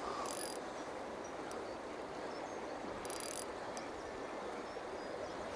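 Steady rush of a fast-flowing river. Two short high-pitched rasps cut in, one just after the start and one about three seconds in.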